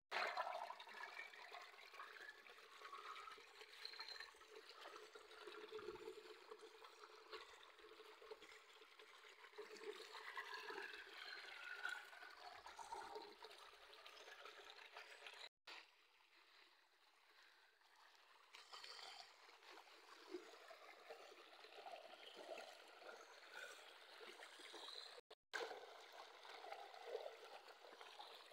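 Faint running water from an irrigation tube well's outlet, trickling and flowing steadily. The sound drops out briefly twice.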